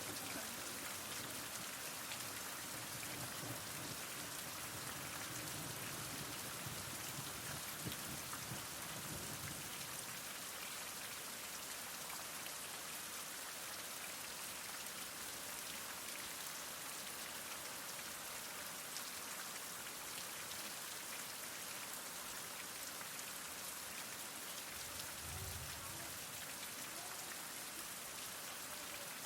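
Heavy rain falling steadily, a dense even hiss of drops with fine patter throughout. A soft low rumble comes and goes in the first third and again near the end.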